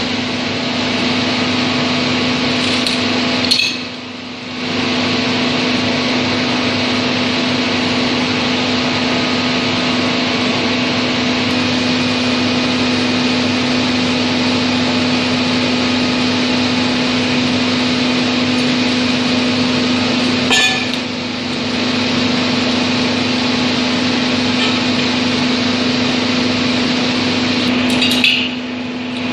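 Steady drone of running machinery with a constant low hum, broken three times by a sharp metallic clank of wrenches on steel drill rods: about 4 s in, around 21 s, and near the end.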